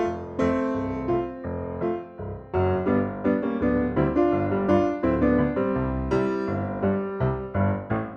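Background music on piano or electric piano, a steady run of plucked-sounding notes and chords.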